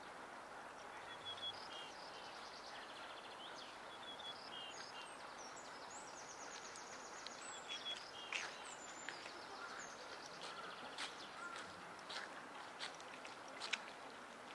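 Steady outdoor background noise with small birds chirping and trilling through most of the first two thirds, and scattered sharp taps and knocks in the second half.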